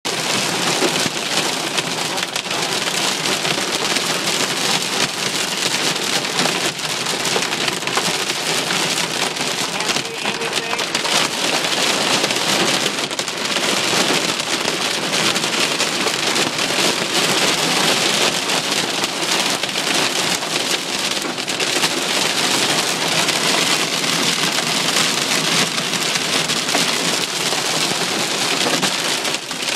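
Heavy rain mixed with hail beating on a car's roof and windshield, heard from inside the cabin: a dense, steady patter of countless small impacts.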